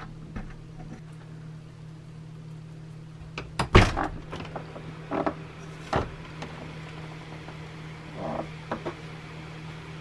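RV screen door being opened and closed by its handles: several clicks and knocks from the latch and frame, the loudest about four seconds in and another about two seconds later, over a steady low hum.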